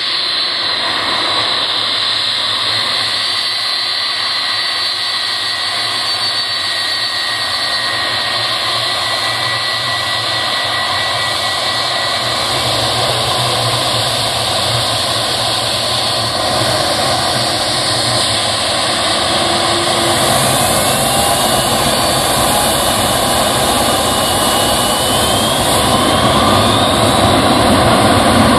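Boeing 757-300's twin jet engines running at low taxi thrust, a steady whine over a broad rush. From about twenty seconds in, one whine rises in pitch and the noise slowly grows louder.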